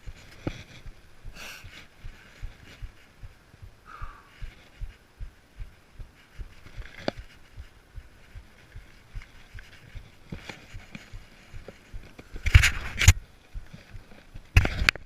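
Downhill mountain bike jolting over a rough trail: a steady run of low thuds and rattles, several a second, with two louder bursts of rushing noise near the end.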